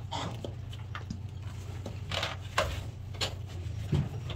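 Hand work on metal parts as a part is fitted: several short scrapes and clicks over a steady low hum.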